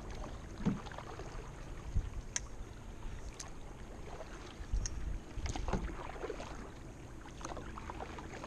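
Canoe paddle strokes in lake water: the blade dipping and pulling, with irregular small splashes and drips and a few low thumps.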